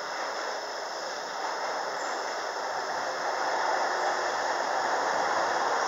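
JR Shikoku 7000 series electric train standing at the platform with its onboard equipment running: a steady hissing hum with faint high whines, growing slowly louder.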